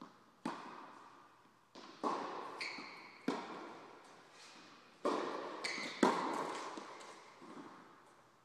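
Tennis ball being bounced and struck with a racket: about six sharp hits, each followed by a long echo in the large hall.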